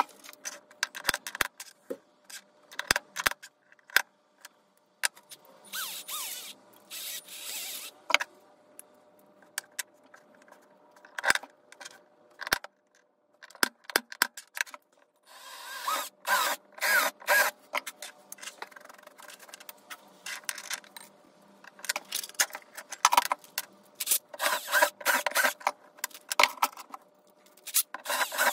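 Small tools and metal hardware handled on a wooden box lid: repeated clicks, taps and scrapes, with short stretches of a cordless drill boring into the wood.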